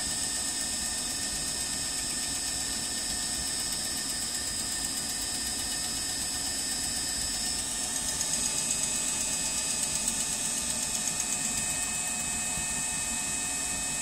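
Eberspacher D9W diesel hydronic heater running: a steady mechanical hum with high, held whining tones, a little louder for a few seconds just past the middle.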